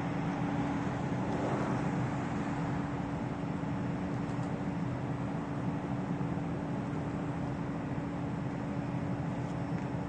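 Truck-mounted knuckle-boom crane running, a steady engine and hydraulic hum with a constant whine, as its grapple-saw head swings a cut tree limb.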